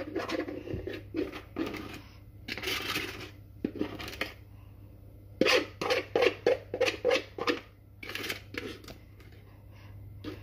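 Kitchen utensils clinking against cookware. About five and a half seconds in comes a quick run of sharp clinks, roughly four a second, and a little under three seconds in there is a short scrape.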